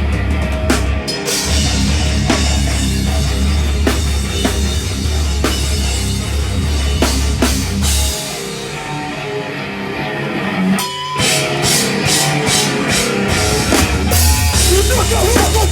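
Live heavy hardcore band playing loud, with distorted guitar, bass and a pounding drum kit. About eight seconds in the low end drops away for a sparser stretch of guitar and drum hits. There is a brief stop about eleven seconds in, and the full band crashes back in near the end.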